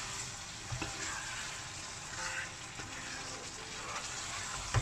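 Potato and capsicum curry in thick tomato masala sizzling in a kadai, stirred with a wooden spoon: a steady frying hiss with a few soft knocks of the spoon against the pan, the loudest near the end.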